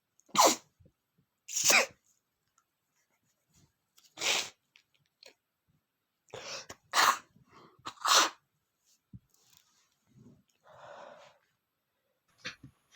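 A man sneezing over and over, about five sharp sneezes in the first eight seconds or so, while he is sick.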